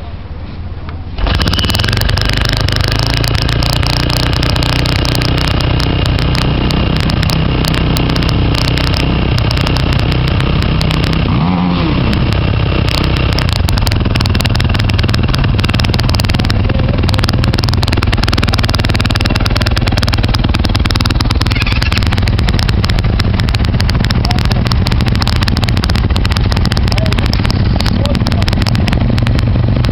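Sport quad engine starting about a second in, then running steadily at idle for the rest of the time. Its pitch dips and rises once about halfway through.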